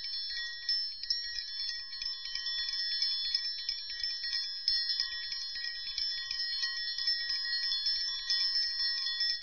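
Triangle, the metal percussion instrument, played in a continuous roll: a steady high metallic ringing kept up by rapid light strikes.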